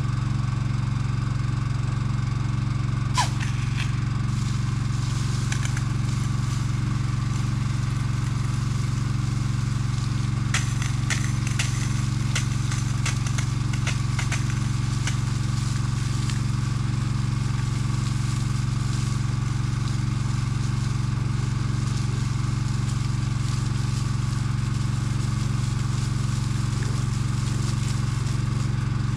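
Firefighting crawler rig's engine running steadily at a constant speed, pumping water out through a hose. A sharp click about three seconds in and a few faint ticks later.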